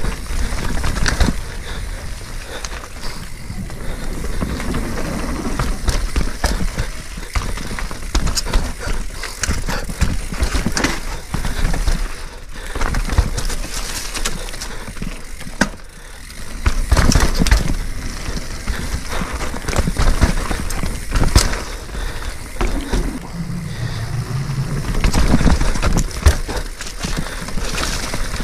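A mountain bike riding down a rough, technical dirt trail: tyres rolling over dirt, rocks and roots, with a constant clatter of rapid knocks and rattles from the bike.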